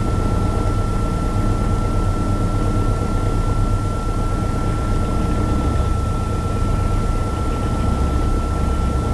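Steady low engine rumble of a Piper Archer heard through the cockpit intercom/radio audio feed, with a thin steady high-pitched tone over it.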